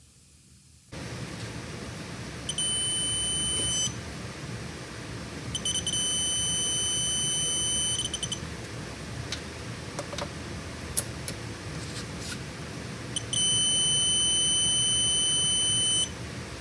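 JORLIO digital torque wrench's electronic beeper sounding three long high beeps, each starting with a quick stutter, signalling that the set torque of 100 foot-pounds has been reached. A few sharp clicks fall between the second and third beep, over a steady background hiss.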